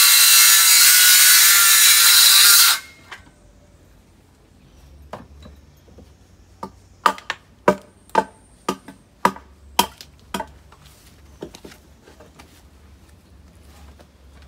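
A power saw cutting wood, loud with a steady whine, stops suddenly about three seconds in. After a short pause comes a run of about ten hammer blows on wood, roughly two a second.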